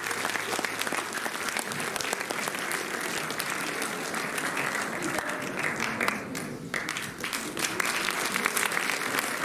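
Audience applauding steadily, dipping briefly about six seconds in and then picking up again.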